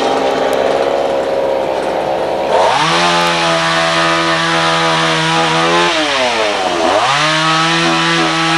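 Two-stroke chainsaw idling, then throttled up to full speed a few seconds in. It is eased off briefly past the middle and revved back up to full speed.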